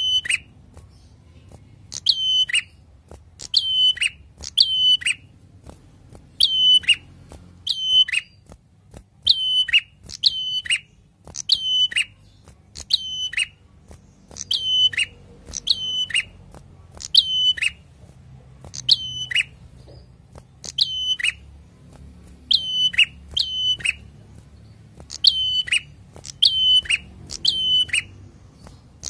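A caged ashy tailorbird (kept as a 'prenjak') calling over and over in a lively run. It gives about one sharp, loud call a second, often in quick pairs, each note dropping in pitch.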